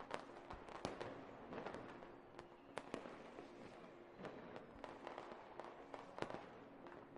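Fireworks at low volume: a continuous run of crackling pops, with a few sharper bangs scattered through.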